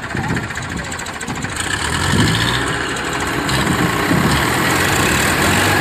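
Tractor diesel engines running, the nearest a Powertrac Euro 60. They grow louder from about two seconds in as they take up load for a tow pull out of the mud.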